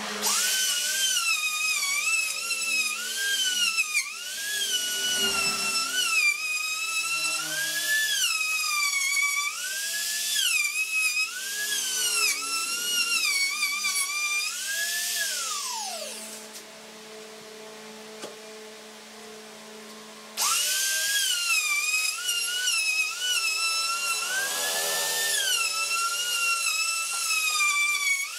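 Handheld trim router on a trammel jig cutting a curved groove into a round wooden tabletop: a high motor whine that wavers up and down in pitch as the bit loads and unloads in the wood. About halfway the motor winds down in pitch and stops, and a few seconds later it is running again at full speed.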